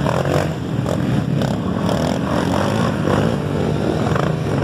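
Off-road motorcycle engines running and revving up and down as trail bikes climb a slippery, muddy hill.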